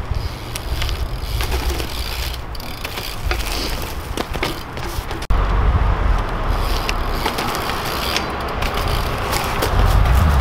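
BMX bike rolling on a concrete path, its rear hub ratchet clicking in scattered ticks, over a steady low rumble.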